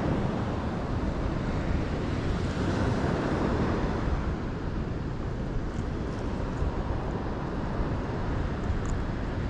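Wind buffeting the microphone in a steady low rumble, with the wash of surf behind it.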